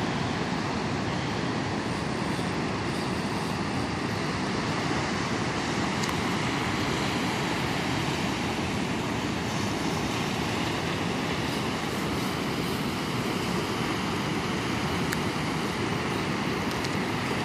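Steady rushing of breaking surf and wind on the microphone, an even noise with no break.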